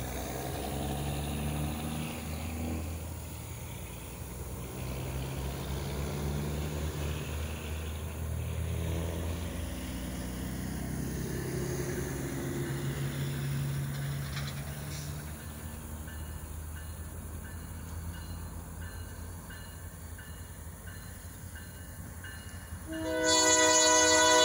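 Diesel locomotives (an EMD GP40-3 and SD40-2) running with a low engine rumble as the train comes along the line. The rumble eases after about 15 seconds. Near the end the locomotive's air horn starts sounding, a loud chord of several tones.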